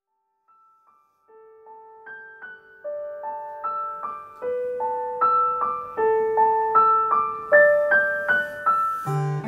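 Background music: a keyboard melody of single piano-like notes, a few per second, fading in and growing louder, with lower notes joining near the end.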